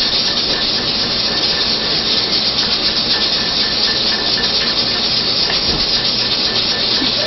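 A steady, even hiss that holds at the same level throughout, with no distinct strokes or rhythm.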